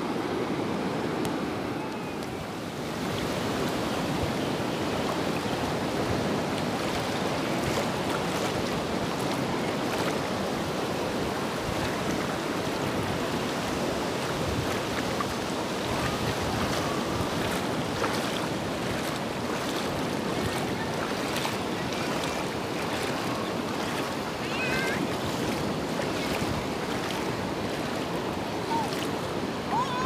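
Sea surf washing onto a sandy beach, a steady rushing noise, with wind on the microphone.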